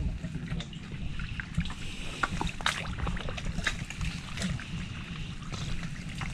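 Shallow water sloshing and splashing with many scattered small clicks and knocks, over a low rumble.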